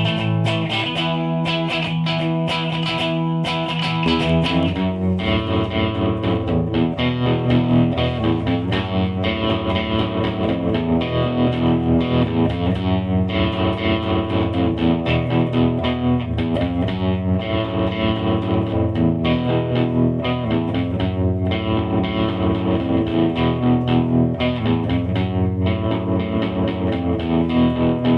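Electric guitar played through a Line 6 POD Pro amp modeler, with a lightly overdriven amp-modeled tone. The notes ring in a steady picked rhythm, and fuller low notes come in about four seconds in.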